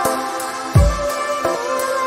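Background music with sustained tones and a light beat, and a deep low thud, falling in pitch, about three-quarters of a second in.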